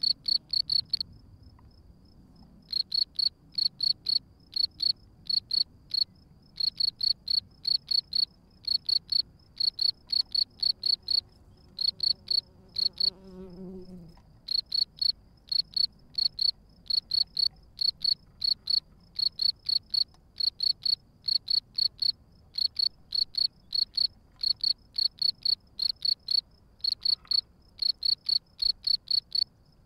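European field crickets chirping: loud, high, evenly spaced chirps, several a second, in runs of one to three seconds broken by short pauses, over a fainter steady high trill. A brief low hum swells and fades just before the middle.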